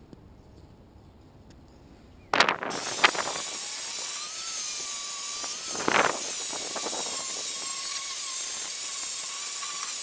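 Handheld angle grinder grinding the welded seams of a steel letter: it comes in suddenly about two seconds in and runs steadily with a high whine, with a few brief louder bursts of the disc on the metal.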